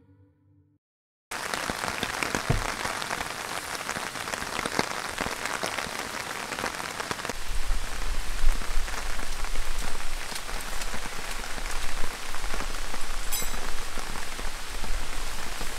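Heavy rain falling steadily, a dense hiss that cuts in abruptly about a second in; a low rumble joins it about halfway through.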